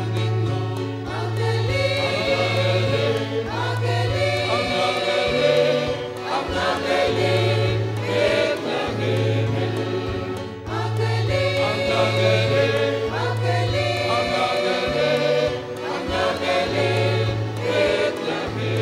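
Mixed church choir singing a Christmas carol in harmony over an instrumental accompaniment, whose low bass notes move in a steady beat.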